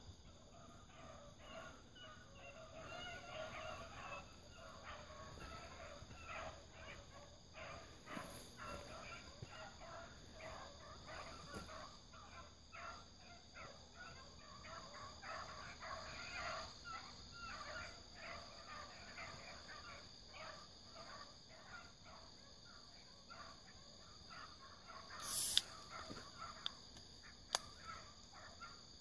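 A pack of dogs barking faintly, many short barks in quick succession, over a steady whine of night insects. A brief sharp high noise stands out near the end.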